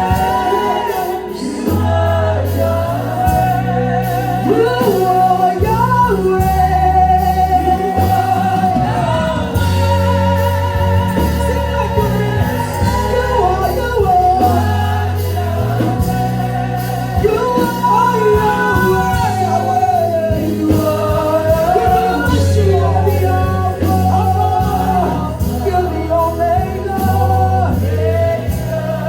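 Live gospel worship music: singing with a band and steady bass notes, echoing in a large hall.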